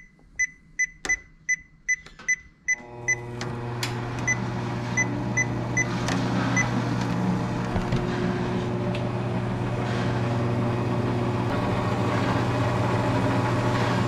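Treadmill console beeping with each press of the speed button, about nine quick beeps. About three seconds in, the ProForm J6's drive motor starts and runs with a steady hum that grows slightly louder, with a few more beeps over it. The motor running shows that the replaced circuit breaker has cured the treadmill's sudden stopping.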